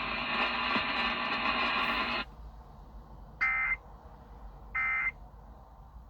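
Emergency Alert System test heard over an FM radio: a noisy, humming background from the relayed test audio cuts off about two seconds in. It is followed by two short, identical digital data bursts about 1.3 seconds apart, the EAS end-of-message code, with a third burst starting at the very end.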